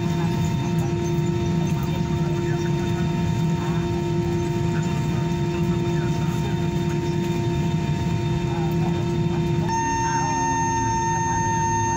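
Cabin noise of an Airbus airliner taxiing after landing: a steady hum of the jet engines with a steady whine over it. Near the end the whine changes abruptly, with new higher tones coming in.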